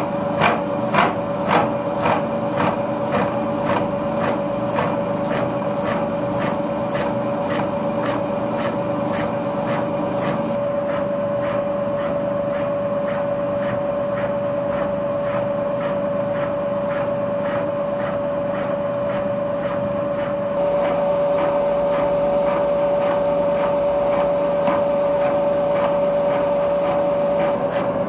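Milling machine running a slitting saw through a metal shaft, cutting a spline groove: a steady whine with a regular tick about twice a second, strongest at the start. The cut gets a step louder about twenty seconds in.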